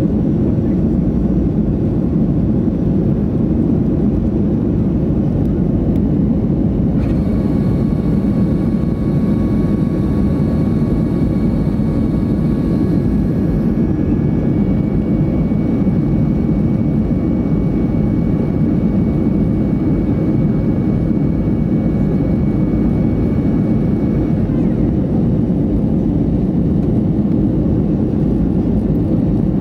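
Steady in-flight cabin noise of a Boeing 737-500: the even, low drone of its CFM56-3 jet engines and the airflow over the fuselage, heard from a window seat.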